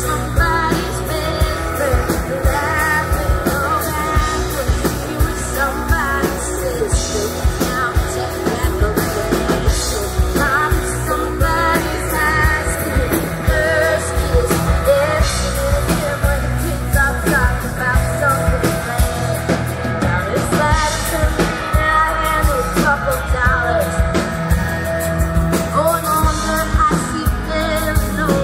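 Live band playing a rock-pop song: a singer over electric guitar and drums, with a steady beat.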